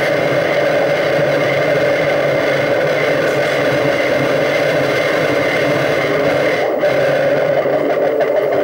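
Dense, steady electronic drone-and-noise soundscape played live from a laptop, with held layered tones under a rough hiss. The upper hiss drops out briefly about seven seconds in.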